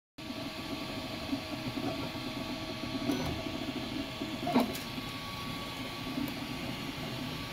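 Ultimaker 3D printer running, its stepper motors driving the print head with a steady whir and a few held tones. A couple of sharp clicks stand out, the loudest about four and a half seconds in.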